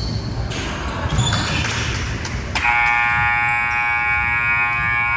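Basketball court noise, then about two and a half seconds in a gym scoreboard buzzer starts and holds loud and steady, the horn that ends the quarter.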